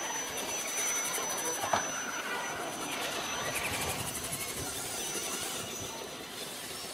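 Electric drive of a radio-controlled off-road model truck running and whirring as it climbs a dirt track, with a short rising chirp a little under two seconds in.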